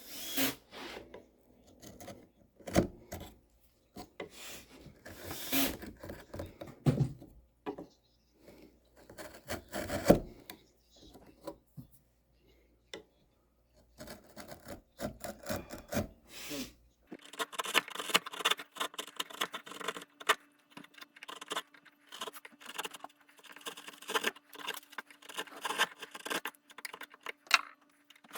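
Wood being worked by hand with tools, rubbing and scraping with scattered irregular knocks. About seventeen seconds in it changes to a dense run of quick scraping strokes.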